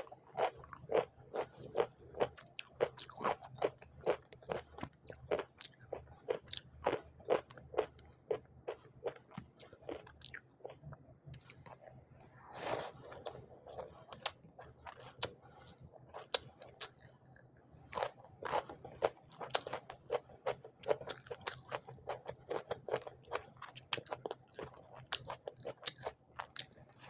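Close-miked chewing of crunchy food: a dense run of sharp crunches and mouth clicks, several a second, with louder bites about halfway and two-thirds of the way through.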